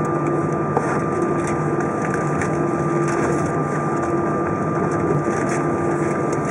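Airbus A320's jet engines running with a steady whine at taxi power, heard inside the cabin as the airliner rolls along the taxiway, with a few faint clicks of cabin rattles.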